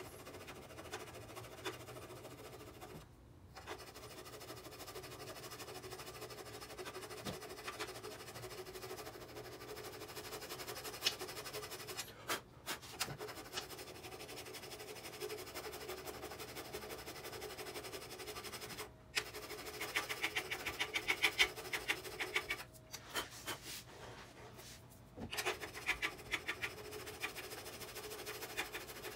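Hand file scraping back and forth over a solder patch on a stainless steel motorcycle muffler, smoothing the solder down. It comes in runs of quick strokes with a few short pauses.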